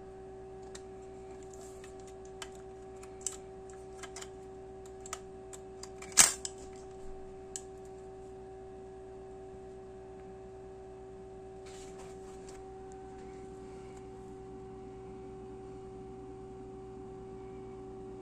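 Lubitel twin-lens reflex camera handled, a string of small clicks and one loud snap about six seconds in as the folding viewfinder hood is opened. A steady hum runs underneath.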